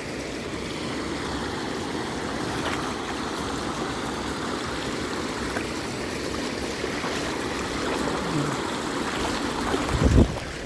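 Waterfall water rushing and splashing in a steady flow. Near the end comes a loud low thump.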